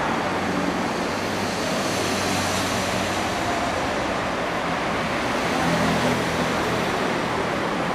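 A steady, even rushing background noise with no distinct events: the ambience of an indoor car lot.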